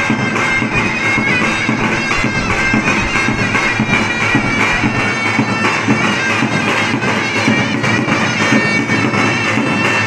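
Davul and zurna playing Turkish wedding music: a shrill, nasal reed melody held without a break over the steady beat of the big double-headed drum.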